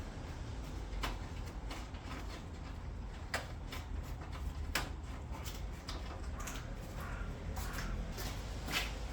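Scattered light clicks and knocks of tools and parts being handled while stripping components out of a car's engine bay, over a steady low rumble.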